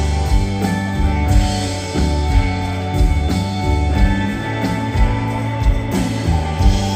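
Live rock band playing: electric guitars and bass ringing over a steady drum beat, with the sound of the room around it.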